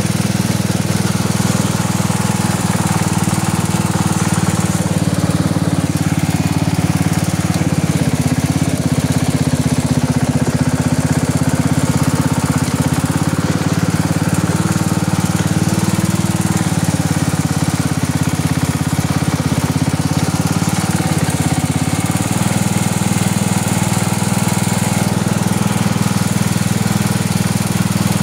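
Riding lawn mower engine running steadily while the mower is driven along, its note wavering a little in pitch through the middle.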